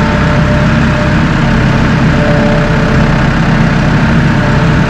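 Massey Ferguson 2860E compact tractor's diesel engine running steadily while its hydrostatic transmission is worked through the treadle pedal.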